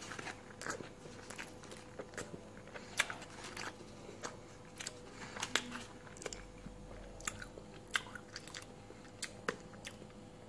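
A person biting and chewing a mushroom-topped coney dog in a soft bun: quiet, irregular wet mouth clicks, a few each second.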